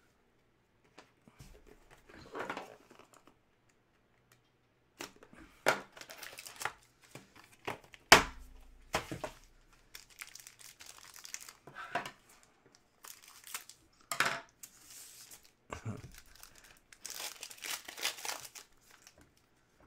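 Hockey card packaging being torn open and crinkled by hand, in irregular rustles with a few sharp snaps, the sharpest about eight seconds in.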